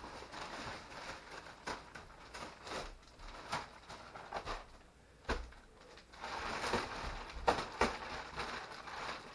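Clear plastic mattress wrapping crinkling and rustling as it is cut and pulled loose, with scattered sharp crackles. The rustling grows fuller and louder about six seconds in, as the sheet is lifted off the mattress.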